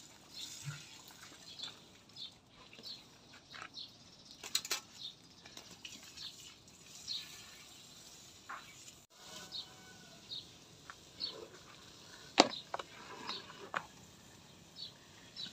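Quiet outdoor background with small birds chirping, short high chirps every second or so. Two sharp knocks stand out, the louder about twelve seconds in.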